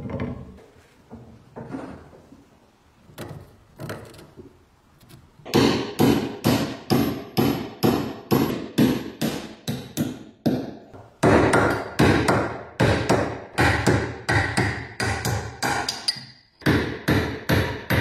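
Hammer blows on a metal tool held against a rusty gear and shaft clamped in a bench vise. After a few faint knocks, steady strikes start about five seconds in, roughly two and a half a second, each with a short metallic ring, pausing briefly twice.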